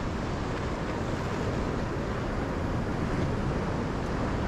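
Wind rumbling steadily on the microphone over the wash of sea surf.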